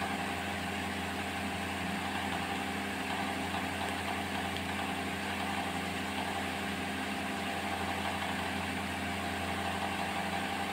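A steady mechanical hum with an even hiss over it, unchanging in pitch and level.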